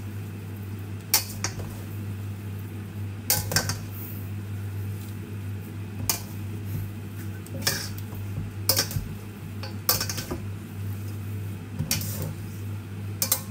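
Metal tongs clinking against a stainless steel mixing bowl as pancit noodles and vegetables are tossed, about seven clinks spaced a second or two apart, over a steady low hum.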